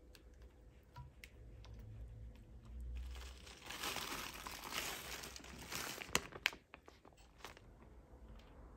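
Plastic bag of grated cheese crinkling and rustling for about three seconds as the cheese is shaken out of it, followed by a few sharp clicks.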